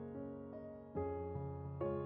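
Soft background music played on piano or electric piano, with new chords coming in about a second in and again near the end.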